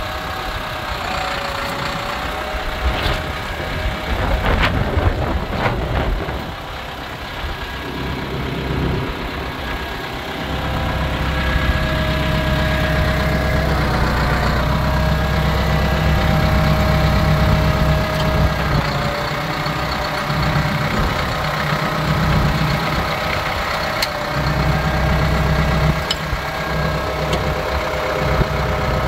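Ford 7610 tractor's four-cylinder turbo diesel engine idling steadily, louder from about ten seconds in.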